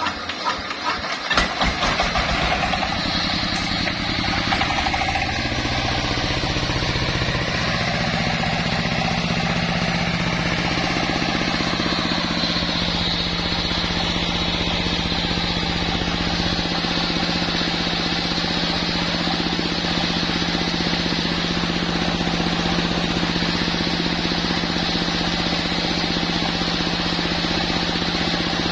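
A sawmill's engine starts with a few knocks and catches within the first two seconds. It then runs up and settles into a steady, even running speed.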